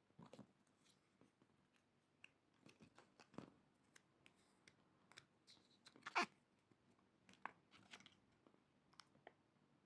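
Faint handling of small plastic packaging and miniature toys: scattered crinkles, taps and clicks, the loudest a sharp crinkle about six seconds in.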